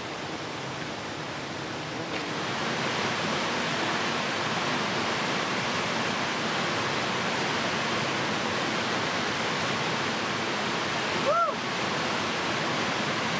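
Waterfall pouring into a pool, a steady rush of falling water that grows louder about two seconds in. Near the end a single short cry rises and falls once.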